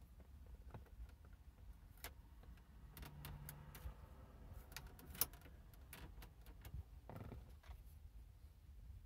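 Near silence broken by a few faint clicks and taps of a radio removal key being handled against the plastic dashboard trim, the sharpest one a little past halfway.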